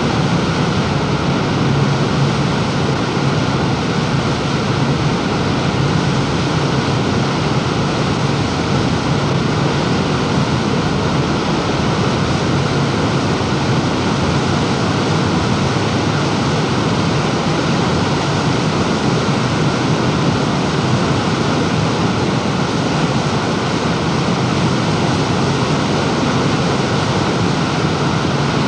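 Steady rushing of wind and water past a moving lake boat, with a low rumble underneath, unchanging throughout.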